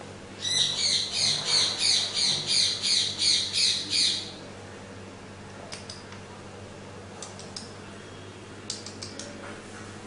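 A bird calling in a rapid, high-pitched series of chirps, about three or four a second, which stops after about four seconds; a few faint short chirps follow later.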